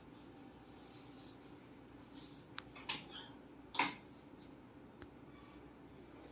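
Chiropractic adjustment: a few light clicks of hands working on the body, then one louder crack a little under four seconds in, a joint cracking under the adjustment, and a last faint click.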